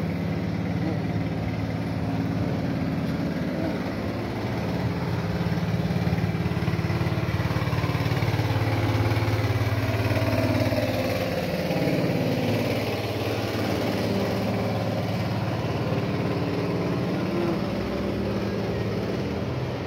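Water tanker truck's engine running close by, its pitch sliding down about halfway through and then settling to a steady idle.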